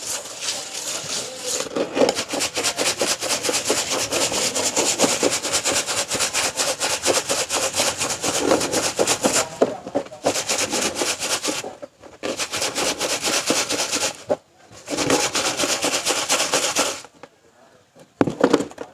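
A stick broom (a bundle of thin palm-leaf ribs) whisked hard around a plastic tub of Remazol dye solution, a rapid scratchy rasping, to mix the dye evenly. It has a few brief pauses, stops near the end and gives way to a few light knocks.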